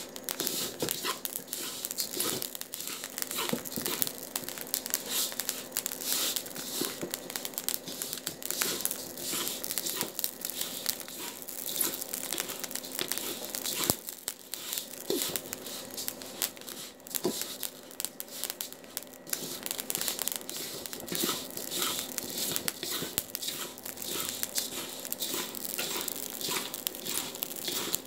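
Sesame seeds being dry-roasted in a pan and stirred, the seeds rustling and scraping against the pan with a dense run of small crackling clicks.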